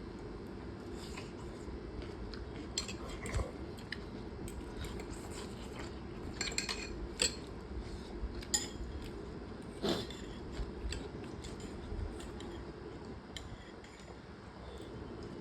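Metal cutlery clinking and scraping against a bowl while eating noodles, in scattered sharp clicks, with a steady low hum underneath.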